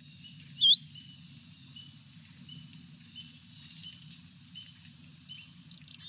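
Scarlet tanager flight call from a sound library recording: one short, upslurred note about a second in, clearly the loudest thing. Behind it are faint, regularly repeated chirps and a steady low hum.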